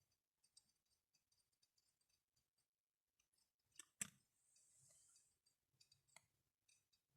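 Faint, sparse taps and clicks of glass bottles being handled, the sharpest pair about four seconds in, followed by a soft hiss and a few lighter clicks.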